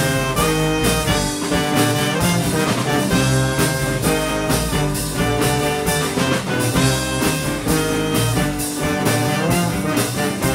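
Live band playing an instrumental break between vocal lines: saxophone and trombone play melody lines over drum kit and guitars with a steady beat.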